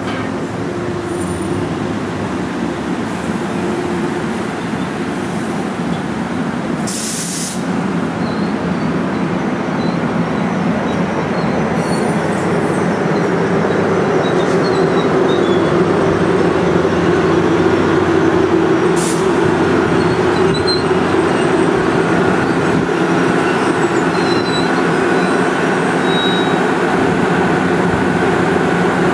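New Jersey Transit commuter train running loud and steady, slowly growing louder, with two short hisses about seven and nineteen seconds in.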